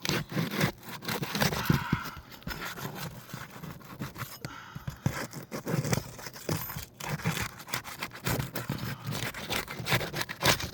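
3-tab asphalt shingles being lifted and pried loose from their sealant strip: irregular scraping, crackling and tearing.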